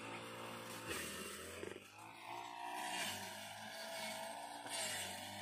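A faint, steady engine hum with no rise or fall in pitch.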